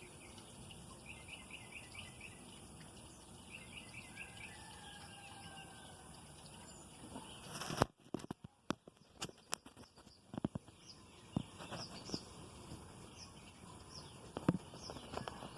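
Backyard birds and insects: short chirps repeated in quick runs over a steady high insect drone. About halfway through comes a sudden loud rush of noise that cuts off abruptly, followed by scattered sharp clicks and knocks among further chirps.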